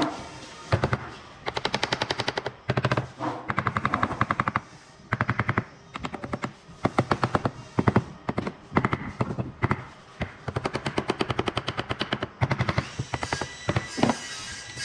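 Power driver running screws into wood in repeated short bursts of rapid rattling clicks, each burst lasting under a second with brief pauses between.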